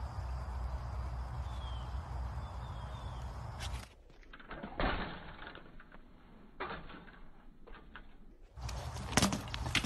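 Wind rumbling on the microphone with a few faint bird chirps. After about four seconds this gives way to a quieter stretch of sharp knocks and clatters from a BMX bike being handled during a flatland-style trick, with more clicks near the end.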